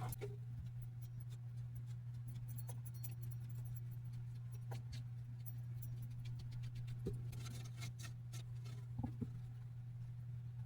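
Faint handling sounds of a hickory and beech glue-up: scattered light clicks, taps and scrapes of wood and tools. A steady low hum runs under it.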